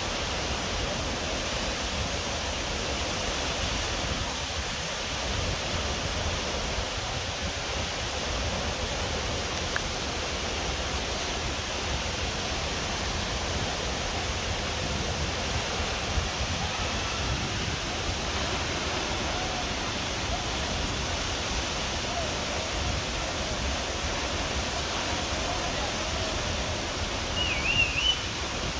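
Waterfall: a steady, even rush of falling water. Near the end a short warbling high-pitched call rises above it.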